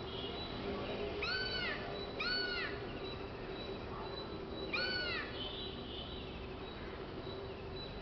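A crow cawing three times, each caw a short cry that rises and then falls; the first two come about a second apart and the third a couple of seconds later.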